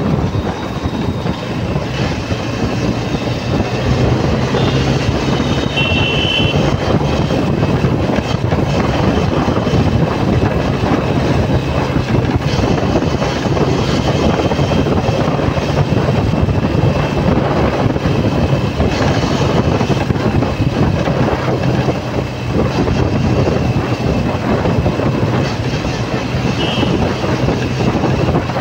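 Motorcycle engine running steadily under way in traffic, with wind and road noise on the microphone.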